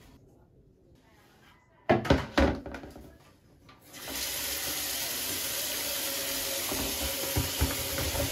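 A few sharp knocks and clatter about two seconds in. Then, from about four seconds, a kitchen tap runs steadily into a plastic basin in a steel sink, with a few light knocks near the end as tomatoes drop into the basin.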